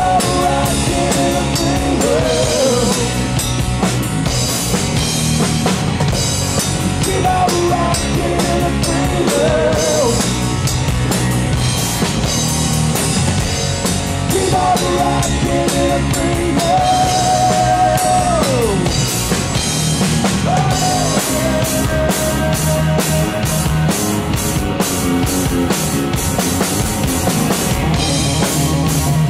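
A live rock band playing: Stratocaster-style electric guitar, electric bass and a Gretsch drum kit, the drums keeping a steady rock beat. Over them a melody holds long notes that slide down at their ends, several times.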